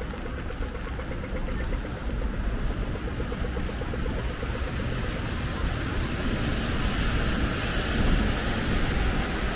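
Steady city traffic on wet streets, a continuous rumble and hiss that builds toward the end. Over it, for the first five seconds, comes a rapid even ticking at about eight ticks a second, the walk signal of a pedestrian crossing.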